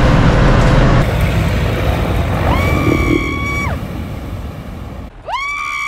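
Sherp N amphibious all-terrain vehicle's engine running, loudest at first and fading off over several seconds. Over it come two high tones, each sliding up, holding about a second and sliding down again.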